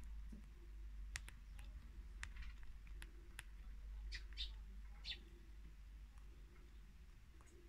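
A small bird pecking peanuts from a hanging feeder: a handful of sharp, irregular beak taps, then a few short scratchy sounds about four and five seconds in.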